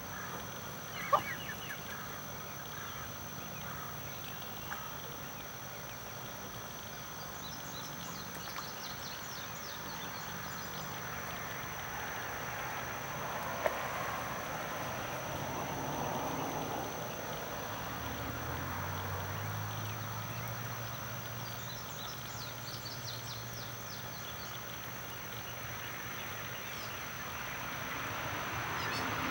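Outdoor ambience: small birds chirp faintly now and then over a steady thin high-pitched tone. A low hum comes in past the middle, and two sharp clicks stand out, one near the start and one midway.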